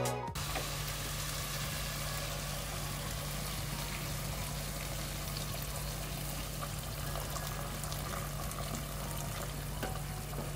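Water poured from a small saucepan into a pot of browned lamb, running in a steady stream onto the hot meat, over a steady low hum.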